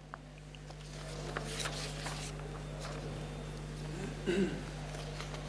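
Lecture-hall room tone: a steady low electrical hum, with faint rustling and a brief faint murmur about four seconds in.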